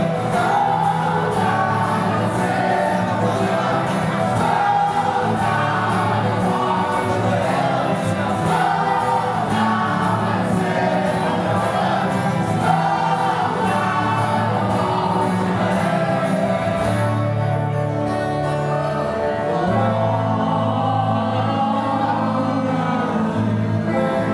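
Live folk band playing a song: acoustic guitars strumming, with several voices singing together over them.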